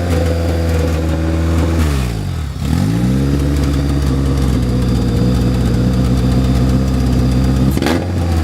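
Freshly rebuilt Toyota 4A-GE 16-valve four-cylinder engine held at raised revs. It drops back sharply about two seconds in, revs up again and holds steady, then dips and climbs briefly once more near the end.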